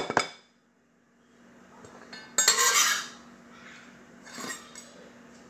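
Kitchen knife and dish sounds while chopped herbs go into a glass bowl of couscous salad: a few quick knocks at the start, then a loud ringing scrape about two and a half seconds in, and a softer one a couple of seconds later.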